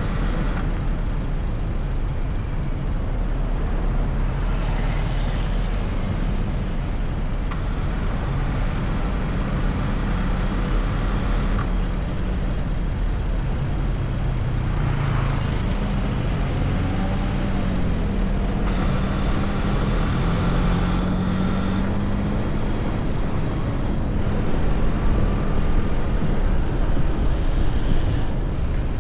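Car driving in city traffic: steady engine hum and road rumble, with the engine note shifting in pitch as it speeds up about halfway through, and a couple of brief rushing swells of passing traffic.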